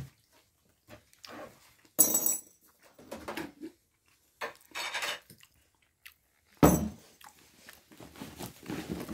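Plates and cutlery clattering on a table in irregular bursts, with a sharp clatter about two seconds in and a louder, heavy knock near seven seconds.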